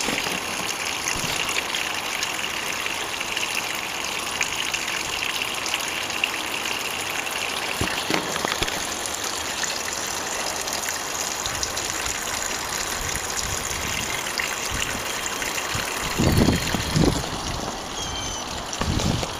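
Small garden pond fountain splashing steadily, fed by a pond pump. A few low thumps come about three-quarters of the way through.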